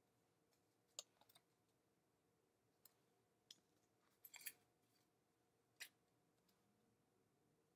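Near silence, broken by a few faint, sharp clicks and rustles of paper cutouts being handled.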